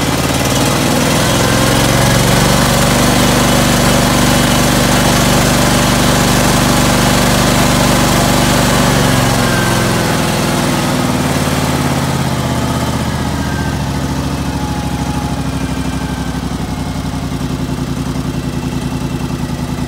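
A John Deere LX277 garden tractor's 17 hp Kawasaki V-twin engine runs steadily while warming up after a cold start. About ten to twelve seconds in, it eases back to a slightly slower, lower-pitched run.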